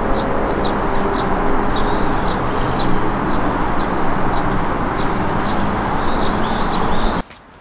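Steady, loud rumble of a vehicle engine or street traffic, with short high chirps repeating about twice a second over it; it cuts off abruptly near the end.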